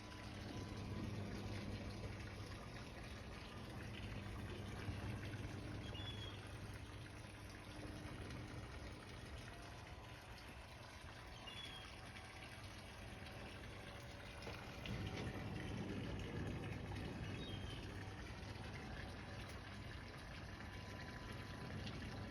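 Steady rushing water noise with a low hum underneath, swelling a little about fifteen seconds in.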